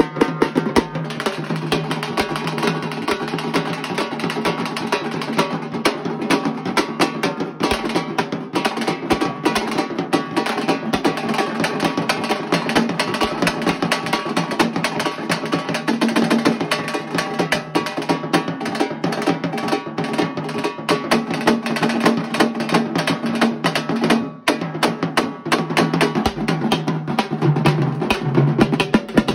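Tamate frame drums beaten with pairs of sticks in a fast, dense, continuous rhythm, with a large bass drum underneath. There is one brief break about 24 seconds in.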